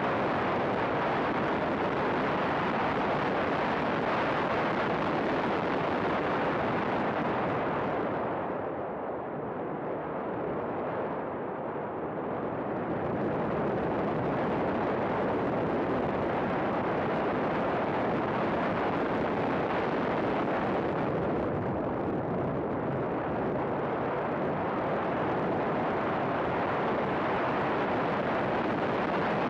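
Race car at about 60–80 mph, recorded from a camera mounted outside on its bodywork: a steady rush of wind buffeting the microphone over the car's running noise, easing for a few seconds about eight seconds in.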